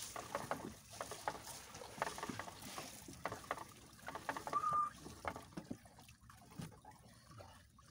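Wet fishing net being hauled hand over hand over the side of a wooden outrigger boat, water splashing and dripping off the mesh in a quick run of small splashes that thins out towards the end. A brief high squeak a little past four and a half seconds in.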